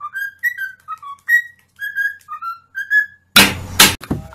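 A cockatiel whistling a tune: a quick run of short clear whistled notes stepping up and down in pitch. Near the end it breaks off and two loud bursts of noise follow.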